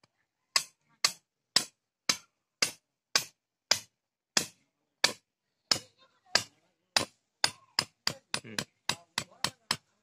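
Ball-peen hammer striking the top of a thin stake, driving it into packed dirt: about twenty sharp strikes, roughly two a second at first, quickening to three or four a second over the last couple of seconds.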